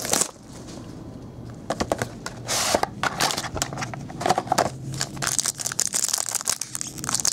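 Plastic wrapping and a cardboard box being handled, then a foil trading-card pack crinkling and being torn open, a dense run of crackles from about five seconds in.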